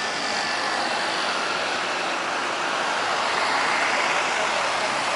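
Boeing 777-300ER's GE90 jet engines running at low taxi power as the airliner rolls past: a steady rushing roar that swells a little about three to four seconds in.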